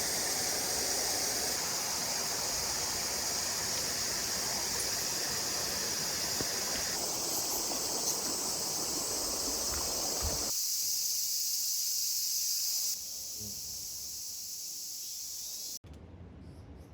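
Mountain stream running, with insects chirring in a steady high-pitched band over the water. The sound changes abruptly a few times, dropping quieter in the last few seconds.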